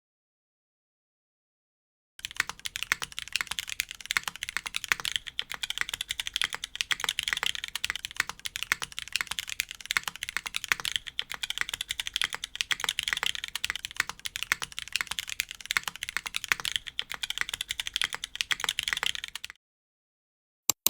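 Typing on an F1-8X V2 mechanical keyboard fitted with Cherry MX Blossom linear switches: a dense run of keystroke clacks that starts about two seconds in and stops suddenly, followed near the end by a single click.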